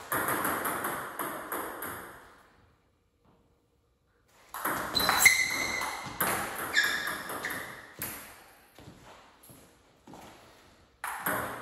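Table tennis rally: the ball clicking off the bats and bouncing on the table in quick succession. The clicks stop for about two seconds, then another exchange starts with a few short high squeaks among the hits.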